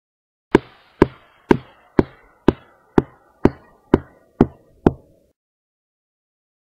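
Footsteps sound effect: ten evenly spaced hard steps, about two a second, each a sharp knock that dies away quickly, stopping abruptly after about five seconds.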